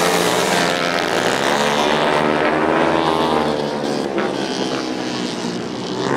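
Several youth speedway motorcycle engines racing together, their pitches rising and falling as the bikes throttle on and off around the track.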